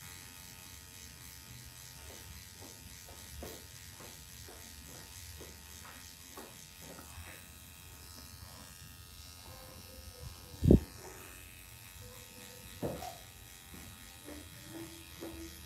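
Permanent makeup tattoo machine buzzing steadily as its needle works pigment into the lash line for a permanent eyeliner, with small ticks throughout. A sharp thump stands out about eleven seconds in, with a smaller knock about two seconds later.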